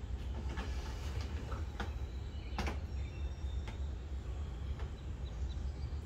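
Clicks and knocks as the egg-turning trays and racks of a homemade dishwasher incubator are handled and slid, the sharpest knock about two and a half seconds in, over a steady low hum.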